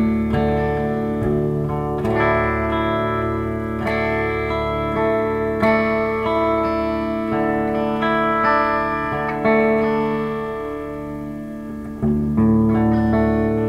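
2013 Gretsch White Falcon G6136T hollow-body electric guitar with Filtertron pickups, played through an amplifier in ringing, sustained chords, a new chord struck every second or two. The sound dips briefly about twelve seconds in, then comes back louder.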